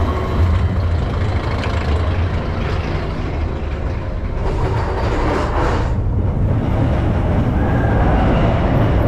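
Vekoma steel roller coaster train running along its track, a steady low rumble of the wheels on the rails that grows slightly louder near the end.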